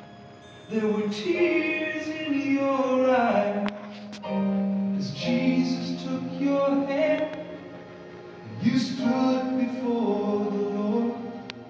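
A gospel song with singing and accompaniment, sung in long phrases with a brief pause between them.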